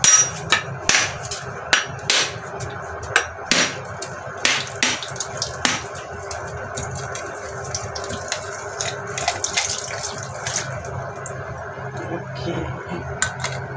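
Back of a steel cleaver knocking on a whole mature coconut to crack its shell, about a dozen sharp knocks over the first six seconds. After that a steadier running-water sound with a few faint clicks, as the cracked coconut drains its water into a stainless steel sink.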